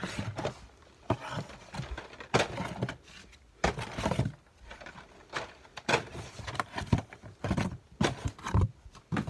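Blister-carded toy cars and a cardboard shipping box being handled: irregular crinkles, knocks and scrapes of plastic packaging and cardboard.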